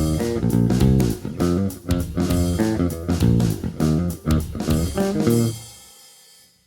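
Strandberg Boden Standard 5 five-string electric bass played with a pick on its bridge pickup, through an SVX-PRO amp simulation: a quick run of notes with sharp attacks. The playing stops about five and a half seconds in, and the last note dies away.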